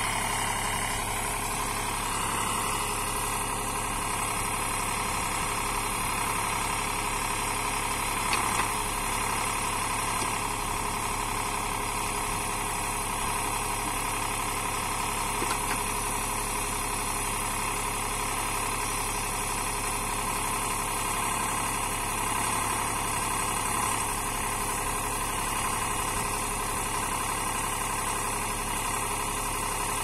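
Eicher farm tractor's diesel engine running at a steady speed while its rear-mounted agriBULL backhoe digs soil, with a faint brief knock now and then.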